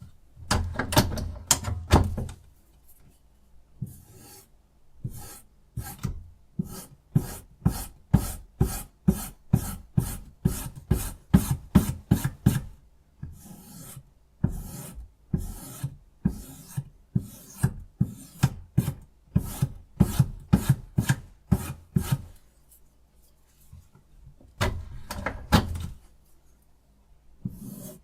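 A sharpening stone on a Rehoo Pro RH006 guided knife sharpener, stroked repeatedly along a knife blade's edge with a gritty rasp, about two strokes a second. There is a short break about three-quarters of the way through before the strokes resume.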